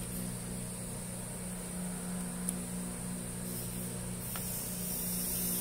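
Steady electrical mains hum with a high hiss, with a couple of faint clicks.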